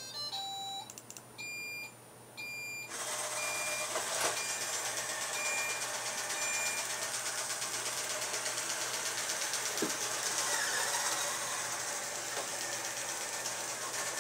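Roomba robot vacuum playing its short electronic start-up tune of beeps, then its vacuum motor and brushes starting about three seconds in and running steadily, with a few faint short beeps over the motor noise.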